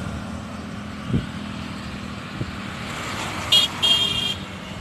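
Motorcycle and scooter traffic running past on a city road, with a high-pitched vehicle horn honking twice, a short toot then a longer one, about three and a half seconds in. A low thump sounds about a second in.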